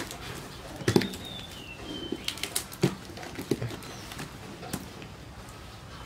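Scattered clicks and knocks of a cardboard box and its packaging being handled and opened. A short, high bird call rises and falls about a second in.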